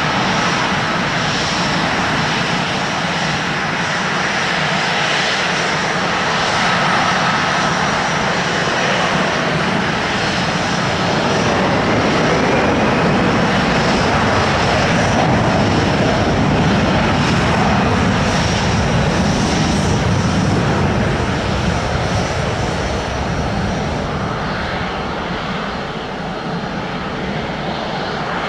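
Jet airliner engines running steadily, a dense even noise with a faint thin high whine above it, swelling slightly through the middle and easing toward the end.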